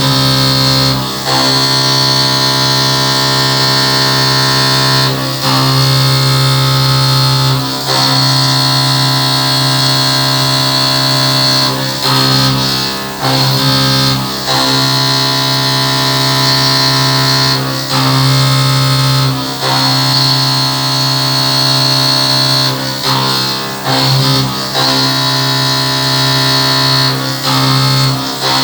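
Haas VF-2SS CNC vertical mill high-speed milling: a steady, loud whine of spindle and cutter with several tones at once, dropping away briefly every few seconds.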